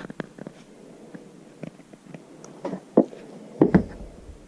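Light clicks and knocks of hands handling the small parts of a scale model camper trailer, with a louder knock about three seconds in and a dull thump just after.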